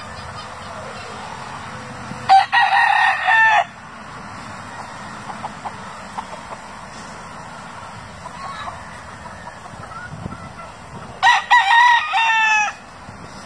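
Rooster crowing twice, each crow about a second and a half long with a falling end, the first about two seconds in and the second near the end.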